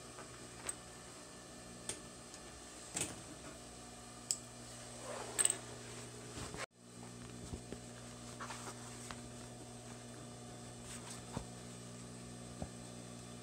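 Electric motor of a Pfaff 463 industrial sewing machine humming steadily while the needle is stopped, with a few soft rustles and clicks as fabric is handled. The sound drops out briefly about halfway.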